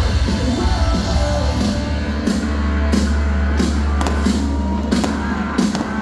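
Loud rock music with a heavy bass line, drum beats and singing, the soundtrack played over loudspeakers for a fireworks show.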